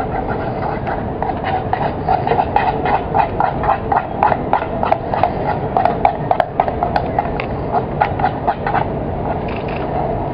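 A utensil beating olive oil into a purée in a bowl: a run of quick clicks and knocks, about three or four a second, that stops about nine seconds in, over a steady background hum.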